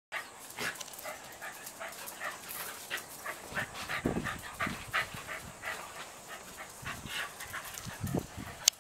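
Welsh corgis play-wrestling, giving many short yips and whines in quick succession, with a few dull thumps of bodies. A single sharp click near the end is the loudest sound.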